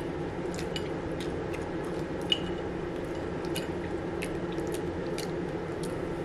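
Close-up chewing and wet mouth clicks while eating a soft, fluffy egg bite, over a steady low background hum. One sharper click stands out about two seconds in.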